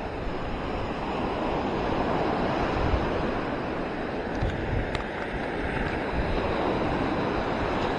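Surf breaking and washing up the beach in a steady rush, with wind gusting on the microphone.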